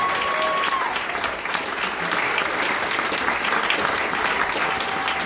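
Audience applauding, with a thin held whistle near the start.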